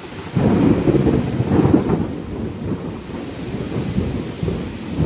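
Thunder rumbling, breaking in suddenly about half a second in and loudest for the next second or two, then easing and swelling again near the end. Steady rain hisses underneath.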